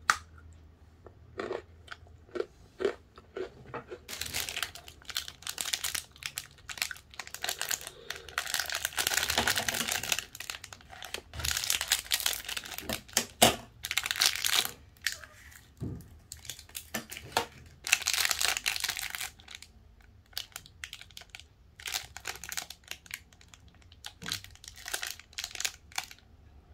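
Clear plastic snack wrapper crinkling and tearing as it is handled and opened, in long stretches of dense crackle with short clicks and ticks before and after.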